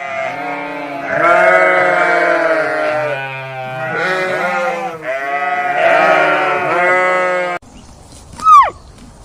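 Several sheep bleating in overlapping, wavering calls, which break off suddenly. About a second later a single short, sharp call rises and falls in pitch.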